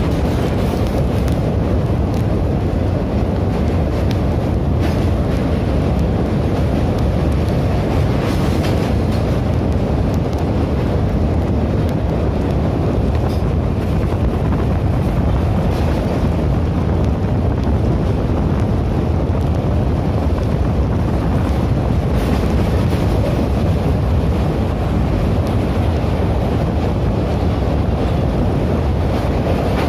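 Steady running rumble of a moving passenger train, with wind buffeting the microphone.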